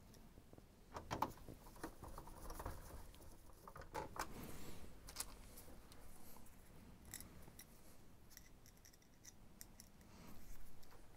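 Screwdriver driving a screw into the plastic case of a Canon G5050 inkjet printer: faint, scattered clicks and scratches as the screw is set and turned home.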